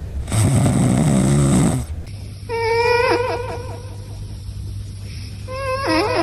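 A sleeping cat lets out one loud snoring breath about half a second in, lasting roughly a second and a half. After a cut, a cat gives a long, wavering, high cry twice, once around the middle and again near the end.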